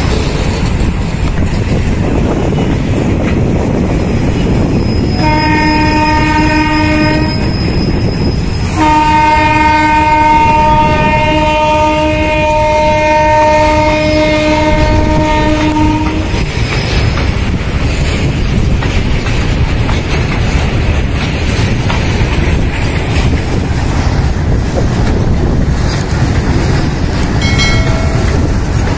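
Goods train of covered wagons rolling past, its wheels rumbling and clacking over the rails throughout. A train horn sounds twice: a short blast about five seconds in, then a long blast of about seven seconds.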